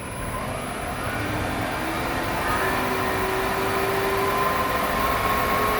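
Acra milling machine's spindle motor, run by a variable frequency drive, speeding up: a whine that rises slowly in pitch and grows louder.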